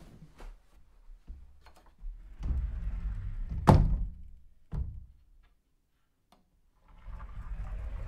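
A sliding closet door rolling along its track with a low rumble, then hitting the end of its travel with a sharp bang a little over halfway through, followed a second later by a smaller knock. Near the end the door starts rolling again.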